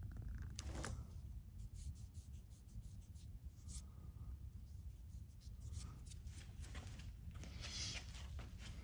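Faint handling noise: soft rubbing and scattered light clicks over a low rumble.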